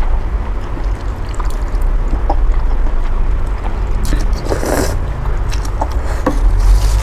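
A person slurping boat noodles and broth from chopsticks, with one loud slurp about four and a half seconds in and small clicks around it, over a steady low rumble.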